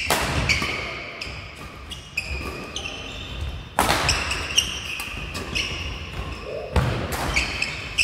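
A doubles badminton rally: sharp racket strikes on the shuttlecock, the loudest near the start, about four seconds in and near the end, with sneakers squeaking on the court floor between hits.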